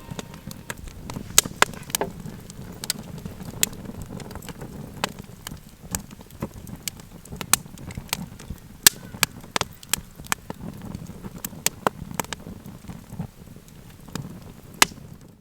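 Campfire burning, with irregular sharp crackles and pops from the burning wood over a steady low rush of flame.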